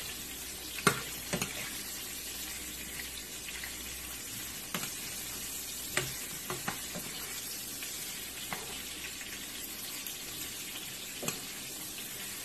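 Sliced onion rings sizzling in oil in a frying pan, being softened until half-cooked and turning translucent. Sharp clicks come every second or two as a utensil knocks the pan while they are stirred.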